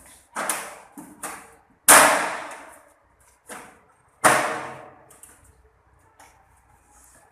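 Short bursts of refrigerant gas hissing out of a split air conditioner's copper line as the discharge-line valve is cracked open and shut, purging air from the pipes. Five sudden blasts, each fading away, the strongest about two and four seconds in.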